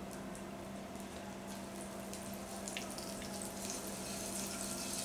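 Butter melting and sizzling faintly in a hot non-stick pan, with small crackles that grow more frequent and a little louder toward the end.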